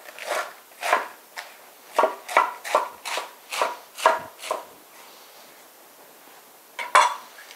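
Chef's knife chopping iceberg lettuce on a wooden cutting board: about a dozen quick strokes, two or three a second, which stop about four and a half seconds in. One more sharp knock comes near the end.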